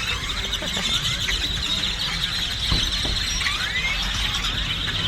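A large flock of birds congregating at sunset, many calling at once in a dense, continuous chorus of squeaky chirps and whistles.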